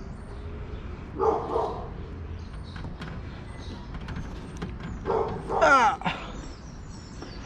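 A dog barking twice: a short call about a second in, then a louder one with a falling pitch past the middle.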